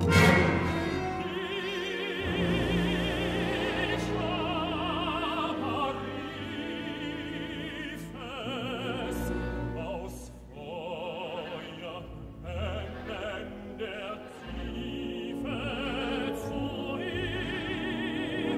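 Tenor singing with a wide vibrato over a large orchestra in contemporary classical music, opening with a loud full-orchestra stroke.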